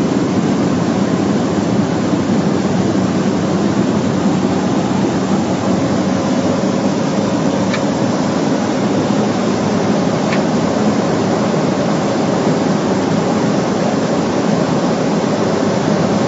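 Cockpit noise of a Cessna 208B Caravan in flight: the single turboprop engine and propeller running in a steady, dense drone with a faint hum through it.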